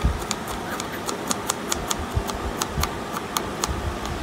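A large kitchen knife chopping cabbage on a wooden cutting board. Quick, even strokes knock the blade on the board about four or five times a second.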